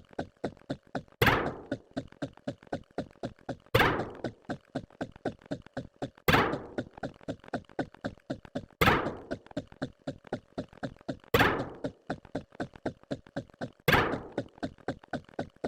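A looped percussive sound effect: short clicks at about four a second, with a louder, ringing thunk on every tenth click, about every two and a half seconds.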